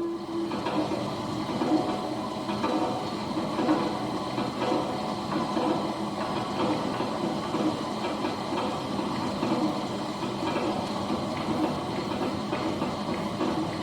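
Dense, steady noise texture with many faint wavering tones, like a train rumble or hiss, from an experimental sound performance.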